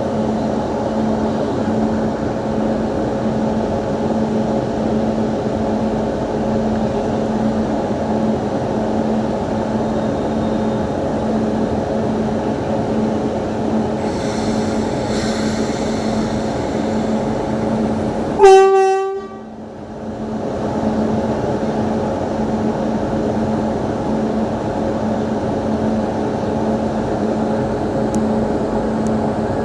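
Indian Railways WAP7 electric locomotive standing with its machinery humming steadily, with a low tone that pulses evenly. About two-thirds of the way through, the horn gives one short, loud blast of about half a second.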